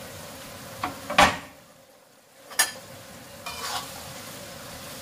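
Chicken, mushrooms and carrots sizzling in a hot stainless steel wok as a metal spatula stirs and scrapes through them, with a few sharp clinks of the spatula on the wok, the loudest about a second in. The sizzle drops away for about a second near the middle before the stirring resumes.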